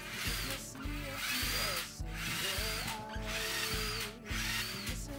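Cordless drill boring holes through a clear acrylic sheet set in a wooden frame, run in about five bursts of roughly a second each with short pauses between, its motor whine rising as it speeds up. Background music underneath.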